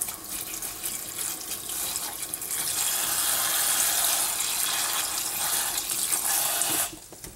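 Kitchen faucet's pull-down spray head running a shower of water into a saucepan of chopped fruit, a steady hiss of spray hitting the pieces and water. The flow gets louder a couple of seconds in and shuts off suddenly near the end.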